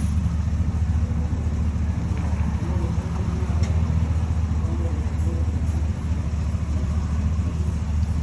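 Pickup truck running at a steady pace, a constant low engine and road rumble with no change in pitch.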